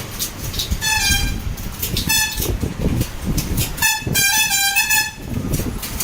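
Vehicle horns honking over low traffic rumble: a short toot about a second in, another near two seconds, then a longer honk of about a second in which two tones sound together.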